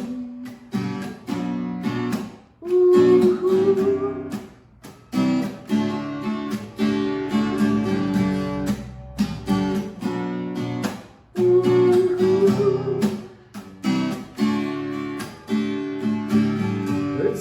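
Solo acoustic guitar strumming chords in a steady rhythm: an instrumental break in a singer-songwriter song, with brief let-ups between phrases.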